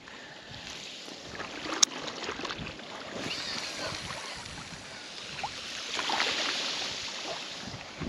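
Water lapping and washing, swelling twice, with one sharp click about two seconds in.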